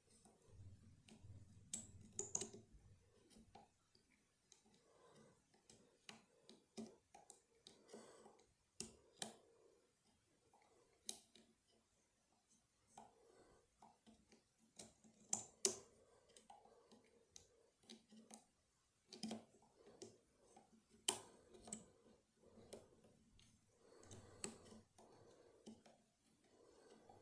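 Faint, irregular metallic clicks and taps from a lever challenge lock and the tools working it, with a few sharper clicks scattered through.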